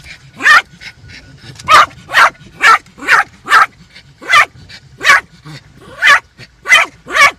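Yorkshire terrier barking repeatedly at the sweeping windshield wipers, about eleven sharp, high-pitched barks, some coming in quick pairs.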